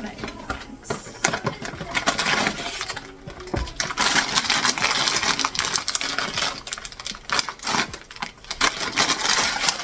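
A blind box's packaging being opened by hand: crinkling and tearing wrapping, with a quick run of clicks and small rattles, louder and denser from about halfway through.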